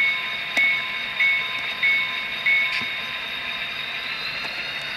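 HO-scale model diesel's Tsunami sound decoder ringing its locomotive bell, five evenly spaced dings a little over half a second apart that then stop, over the decoder's steady idling EMD 645 prime-mover sound through the small onboard speaker.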